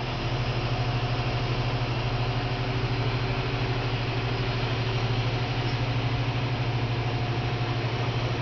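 Mobile crane's engine running steadily at an even speed, a constant low hum.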